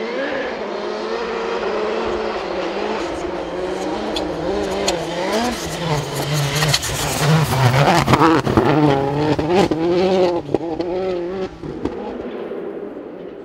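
Rally car at full attack approaching, passing close and pulling away, its engine revving up and down through repeated gear changes. The loudest stretch comes past the middle, mixed with a run of sharp crackles and pops, before the sound fades near the end.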